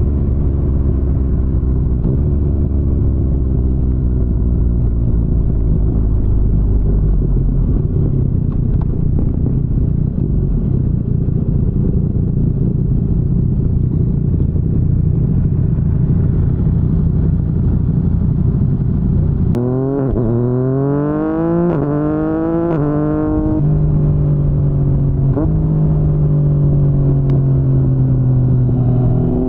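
Yamaha MT-09's 847 cc three-cylinder engine through an Akrapovic full-system exhaust, heard while riding: it runs at steady cruise, then about two-thirds of the way through the rider opens it up and the pitch rises in three quick sweeps, each cut off by an upshift, before it settles back to a steady cruise.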